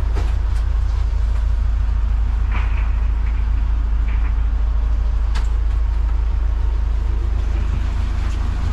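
Steady low rumble of an idling engine, with a few sharp knocks.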